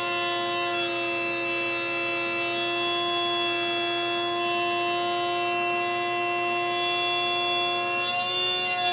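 Table-mounted router running at full speed with a steady high whine as a maple board is fed over a freshly resharpened half-inch bit, cutting a quarter-inch-deep groove. The resharpened bit cuts cleanly without burning the wood.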